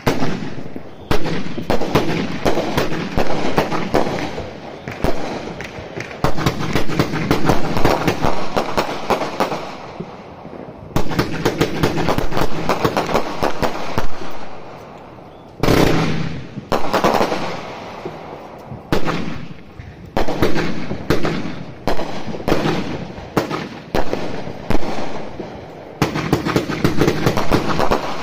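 Street Fighter 63-shot firework cake firing: shots launch and burst in quick succession, in volleys with brief lulls about ten seconds in and again around fifteen seconds.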